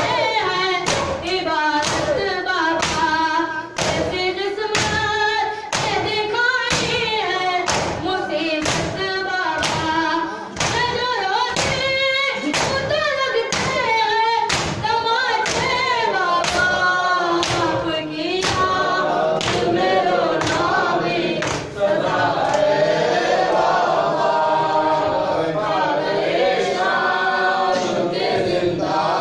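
Mourners chanting a nauha lament together, keeping time with matam: open hands beating on chests in a steady thump about every three-quarters of a second. The beat fades under the voices in the last several seconds.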